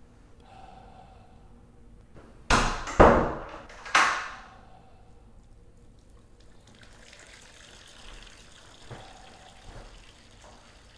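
Three loud, sudden splashes of water, the second about half a second after the first and the third a second later, each dying away quickly; later a faint steady hiss.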